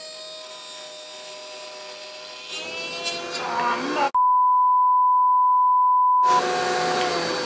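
A router mounted in a router table runs with a steady whine, growing louder as a board is fed along the fence into the bit. About four seconds in, all other sound is replaced by a loud, steady, single-pitch bleep lasting about two seconds. Then the router is heard again.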